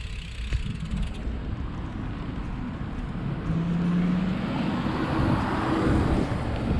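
Road traffic passing: a car's tyre and engine noise swelling over a few seconds, with a brief low hum about halfway through.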